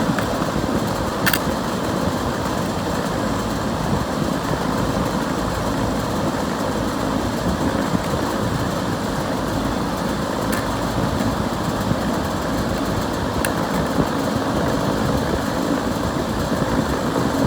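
York rooftop air-conditioning unit running steadily after its evaporator coil repair, with a few faint clicks.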